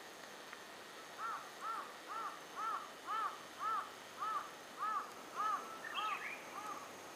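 A crow cawing over and over, short arched calls at an even pace of about two a second, starting about a second in. A short higher chirp from another bird comes in near the end.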